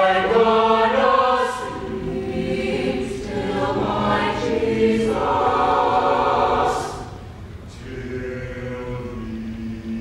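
High school mixed choir singing a gospel song, full and loud, then dropping to a softer passage of held notes about seven seconds in.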